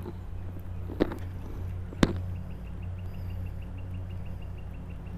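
Spinning fishing reel being worked: two sharp clicks about a second apart, then an even, fast ticking as the handle is cranked through the rest of the retrieve.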